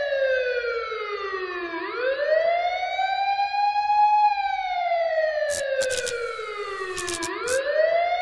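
A wailing siren: its pitch falls slowly for about three seconds, then sweeps quickly back up, and the cycle repeats, with a few sharp clicks in the second half.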